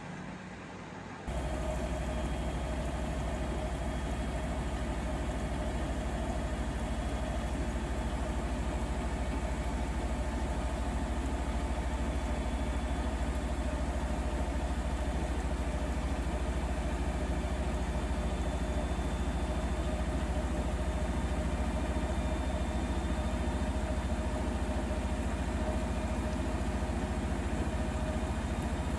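Bosch Serie 4 WAK20260TR washing machine kicking in about a second in and running on with a steady low hum and a faint even whine.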